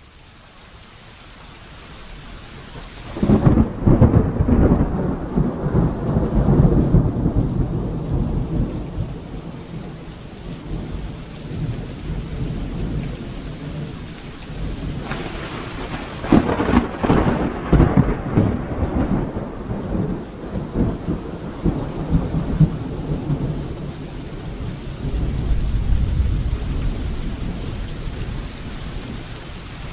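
Rain falling steadily, fading in at the start, with thunder. A clap about three and a half seconds in rolls on for several seconds, and a second crack about halfway through rumbles on under the rain.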